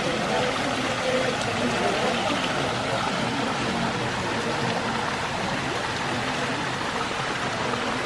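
Water from a row of carved stone spouts pouring and splashing steadily into a bathing pool, with faint voices of people around it.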